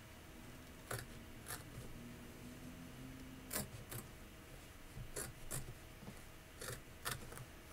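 Small scissors snipping appliqué fabric close to a tack-down stitch line: about eight faint, sharp snips, several in quick pairs.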